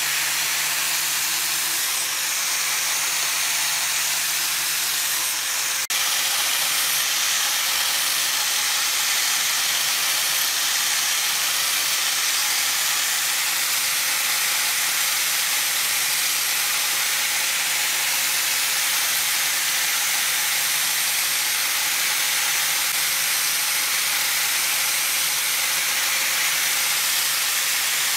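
Electric angle grinder fitted with a sanding disc running steadily as small wooden pieces are sanded against it: a continuous high hiss over a faint motor hum. A sharp click comes about six seconds in, and after it the sound is slightly louder.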